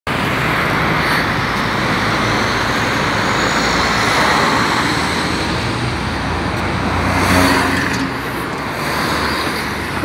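Road traffic: cars, a van and a box truck passing on a multi-lane road, a steady rush of tyre and engine noise that swells as a vehicle passes about four seconds in and again around seven seconds.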